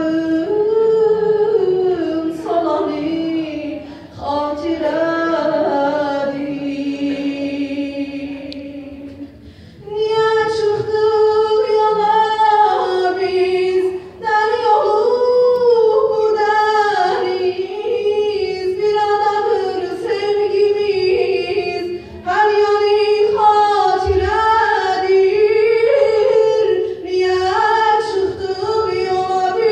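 A young woman singing an Azerbaijani song solo into a microphone, in long phrases with wavering, ornamented runs and short breaths between them. The first phrases sit lower; from about ten seconds in she sings higher.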